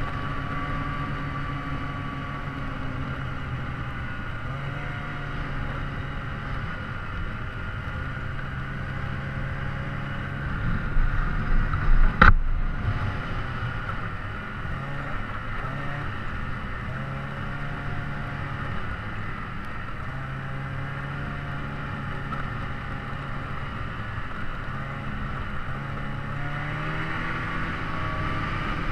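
An engine running steadily, its pitch shifting now and then, with one sharp knock about twelve seconds in.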